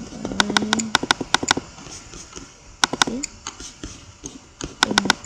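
Sharp computer clicks in three quick runs of several clicks a second while the on-screen view is being rotated. A short hummed voice sounds over the first run and again near the end.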